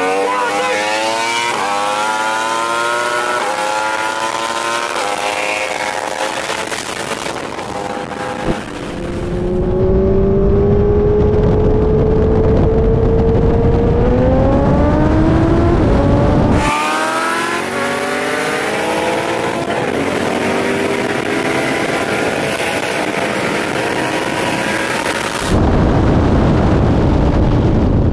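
A sport motorcycle and a twin-turbo Coyote V8 Mustang accelerating hard side by side, engine notes climbing through the gears. Over two long stretches, heavy wind rush on the motorcycle-mounted camera covers much of it.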